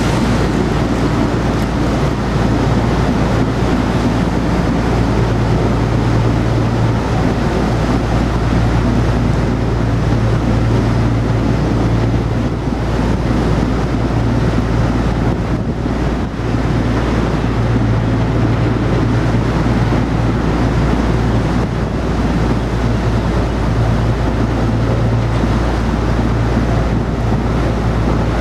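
Diesel engine of a motor cargo barge running steadily under way, a constant low drone, with churning propeller wash and wind buffeting the microphone.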